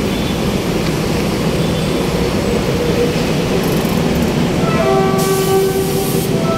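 Loud, steady rumble of a train running past. About five seconds in, a steady tone with several pitches joins it, like a horn.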